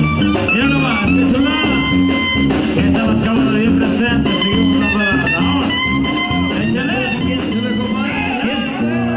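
Live banda sinaloense brass band playing: a sousaphone bass line pulsing under trumpets, trombones and clarinet, with drums and a man singing.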